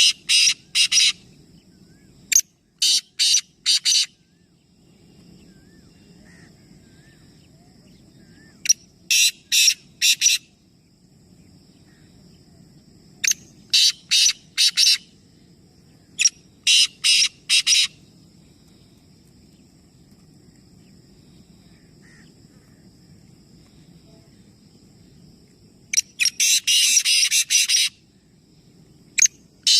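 Birds calling in quick runs of four or five loud, sharp notes, a run every few seconds, the longest and densest run near the end.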